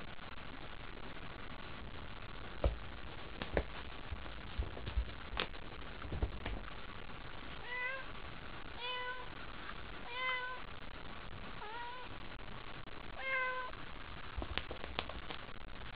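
Domestic cat meowing five times in a row, short calls about a second apart, excited by a feather wand toy. A few sharp knocks and taps come before the meows and again near the end.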